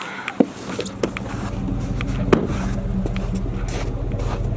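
A vehicle engine running steadily. It builds over the first second or so and then holds, with a sharp knock just under half a second in and another a little after two seconds.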